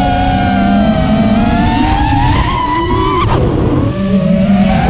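Four Xing Camo 2208 2450KV brushless motors on an FPV quadcopter whining. The pitch climbs slowly for about three seconds, then drops away suddenly as the quad rolls inverted, leaving a rush of air, and the whine picks up again near the end. Heard from the onboard camera.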